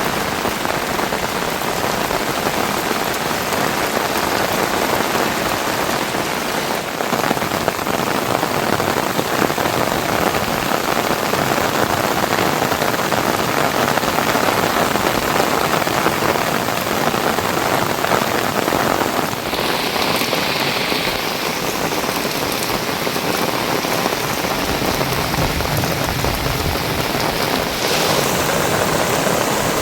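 Heavy rain falling steadily, a dense even patter of drops on surfaces. Its tone shifts about two-thirds of the way through, turning brighter and hissier, then shifts again near the end.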